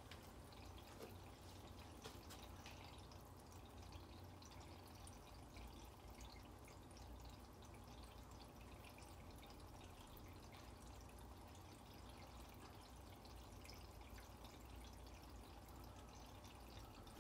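Near silence: faint dripping and trickling of aquarium water over a low steady hum.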